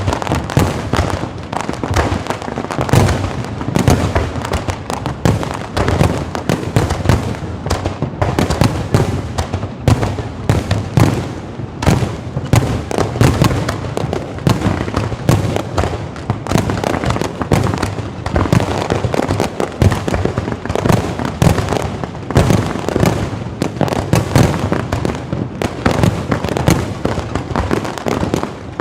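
Fireworks display, low-altitude firework racks going off in a rapid, continuous barrage of bangs, pops and crackles with low booms.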